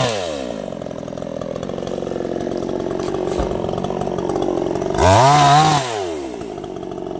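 Two-stroke chainsaw dropping from full revs to idle, idling for about five seconds, then revved once briefly, under a second, before falling back to idle.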